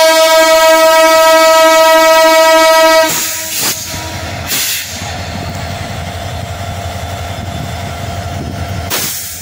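Diesel locomotive horn sounding one long, loud, steady blast that cuts off suddenly about three seconds in. It is followed by the steady rumble of the locomotive and coaches passing on the track.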